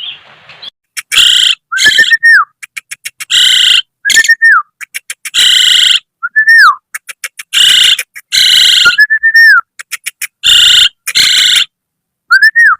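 Asian pied starling (jalak suren) calling loudly. Harsh, rasping bursts alternate with short clear whistles that rise and then drop, and with quick runs of clicks, repeated every second or two.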